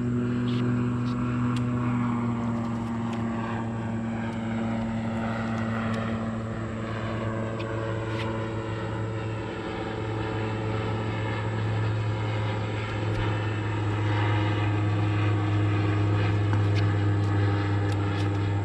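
Bass boat's outboard motor running steadily at speed, its level dipping slightly about halfway through and then picking back up.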